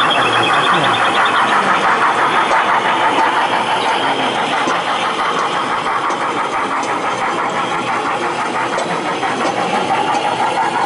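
Model steam locomotive and train running along the layout track close by: a steady mechanical running sound with a fast, even beat, louder for the first few seconds and then easing.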